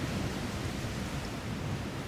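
Steady rushing noise of the shoreline, with a low rumble underneath and no distinct events.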